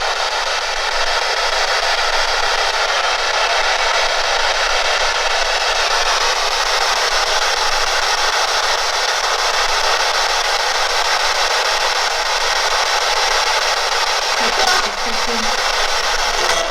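Steady static hiss from a spirit box, the ghost-hunting device that spirits are asked to speak through.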